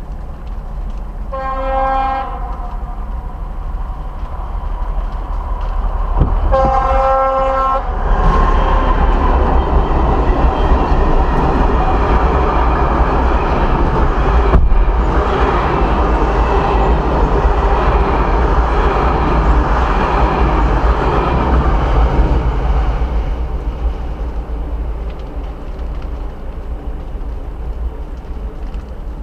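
Train horn sounding twice, a short blast near the start and a longer one a few seconds later. The train then passes over the level crossing, a loud, steady rushing and rolling noise that lasts about fifteen seconds before fading away.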